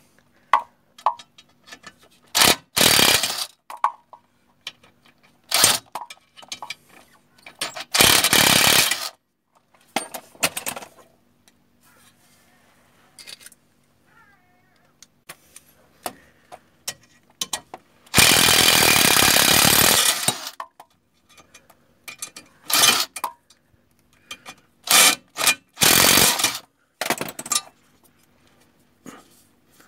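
Impact wrench on a long socket extension running in several loud bursts, the longest about two and a half seconds, loosening the upper control arm bolts on a Jeep Dana 30 front axle.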